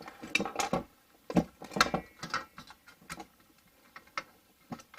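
Hand wrench working a bolt on a diesel heater's mounting plate: irregular sharp metallic clicks and clinks of tool on metal.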